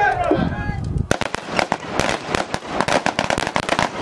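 A firing line of rifles opening fire about a second in: many rapid, overlapping shots with no pause between them.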